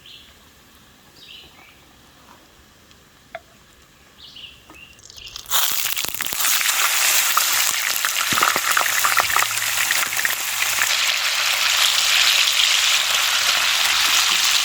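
Bacon sizzling loudly in a non-stick frying pan, the sizzle starting suddenly about five seconds in. Before it, only quiet with a few faint bird chirps.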